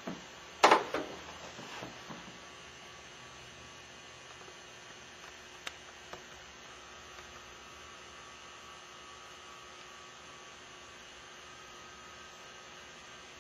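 Steady faint electrical hum with hiss. A sharp knock comes about a second in, with a few softer knocks and clicks just after it.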